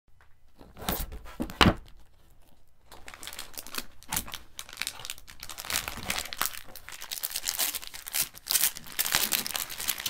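Unboxing handling noise: a couple of knocks from the cardboard box, the louder about a second and a half in, then thin plastic wrap crinkling and rustling continuously as a wrapped speaker is lifted out and handled.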